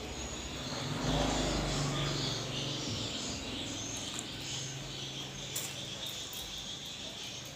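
Close-up chewing and eating sounds. Insects chirr steadily in the background.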